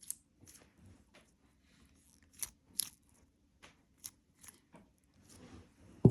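A glittery Nee Doh cube squishy being squeezed and handled close to the microphone: scattered crackling clicks, with a louder thump right at the end.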